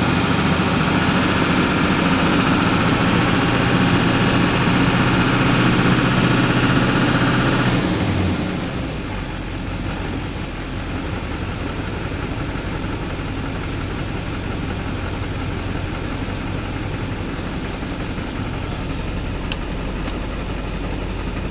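Duramax LLY 6.6-litre turbodiesel V8 running a little above idle, then dropping back about eight seconds in and settling into a steady, even idle. After a little throttle it levels out and idles fine.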